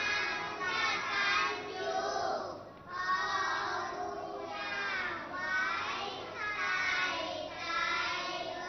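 A group of children reciting a Thai children's rhyme about a cat in unison, in a sing-song chanting melody.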